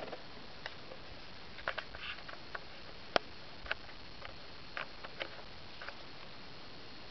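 Irregular light knocks and clicks from a wooden pirogue being paddled, over a steady hiss, the sharpest knock about three seconds in.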